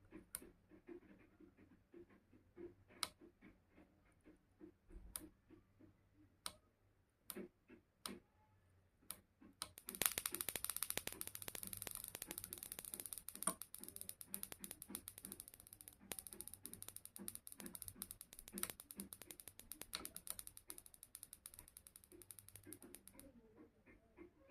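Several separate sharp clicks, then a fast mechanical ratcheting clatter that starts about ten seconds in and stops about thirteen seconds later.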